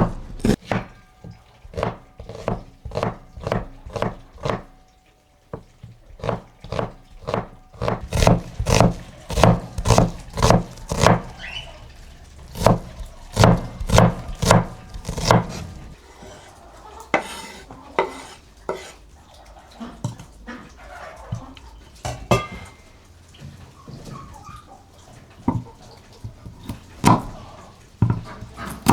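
Knife chopping on a cutting board, a steady run of sharp knocks about two to three a second that thins out and grows quieter about halfway through.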